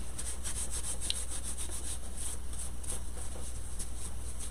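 Gloved hands being rubbed clean with a damp baby wipe: soft, irregular rubbing and swishing strokes.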